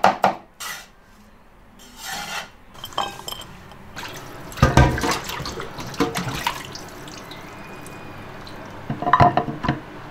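Water sloshing and splashing in a basin as the soaked bigeye tuna eyes are handled, with a few knocks of the bowl or dish, the loudest a little after four seconds in and again near the end.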